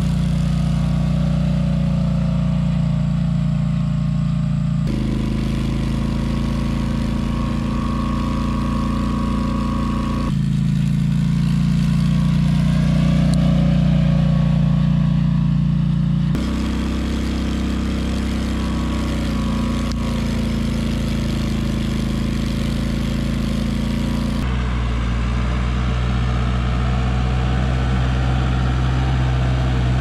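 Polaris Sportsman 850 ATV's twin-cylinder engine running at a steady speed as it drives across a field. Its pitch and tone jump abruptly several times, every five to eight seconds.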